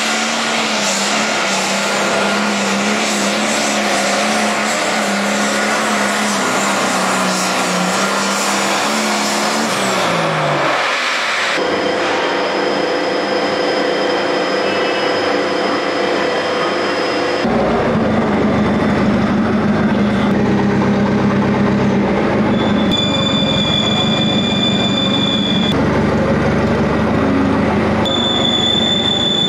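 Pulling tractor's engine running hard under load, its pitch sagging about ten seconds in as the run ends. After that, steady mechanical running with high, constant whines, growing louder at about seventeen seconds, where a high whistle comes and goes.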